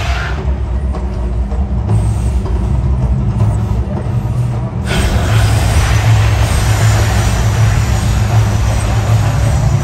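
Man-made volcano attraction erupting: a steady deep rumble under bursts of gas flames, with a rushing noise that grows much louder about five seconds in.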